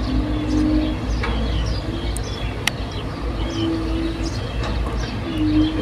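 Excavator's diesel engine running with a steady low rumble and a whine that sounds, drops out and returns several times, with a single sharp click near the middle. Birds chirp over it.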